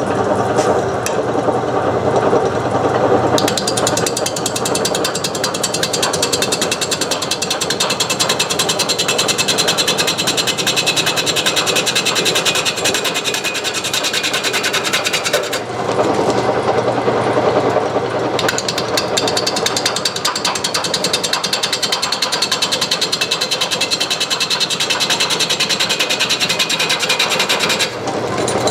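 Homemade wood lathe running at its slowest pulley speed with a large off-center blank whirling in an offset chuck, and a gouge taking an interrupted cut that hits the wood each time the high side comes round, giving a fast, hard rattling with cutting hiss. The cutting noise eases for a couple of seconds about halfway through, then picks up again.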